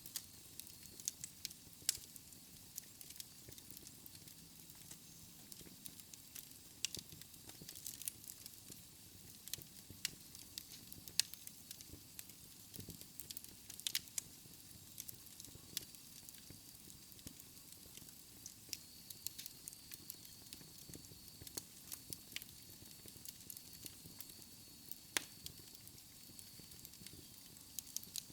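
Wood fire crackling in a fireplace: irregular sharp crackles, a few louder than the rest, over a soft steady hiss and low rumble of the burning logs.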